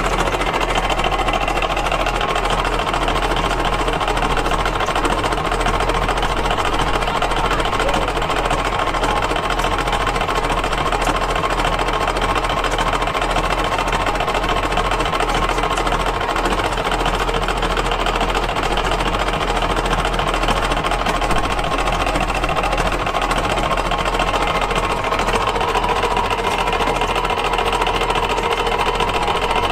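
Antique gasoline engine running steadily with a rapid, even beat.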